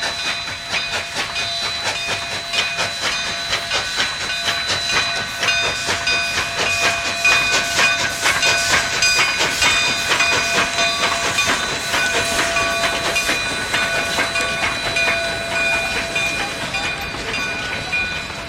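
Narrow-gauge steam freight train behind a 2-8-0 locomotive going by, with steam hissing and several steady high-pitched tones over rapid clicking. It grows loudest about halfway through and eases near the end.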